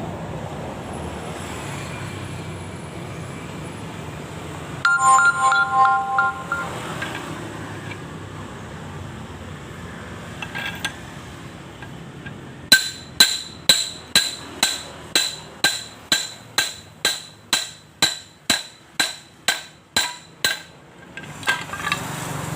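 Small metal engine parts rattling and ringing briefly, then a long run of about twenty evenly spaced metal-on-metal taps, two or three a second, each with a short ringing tone, like a hammer tapping a part into place on a motorcycle engine.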